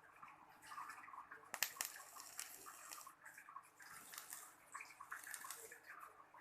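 Wet Ni80 coil in a rebuildable dripping atomizer sizzling and crackling as it is fired on a mechanical mod, in irregular spells with brief pauses and a sharp pop about one and a half seconds in. The coil is being fired to cook in freshly wicked, juice-soaked cotton.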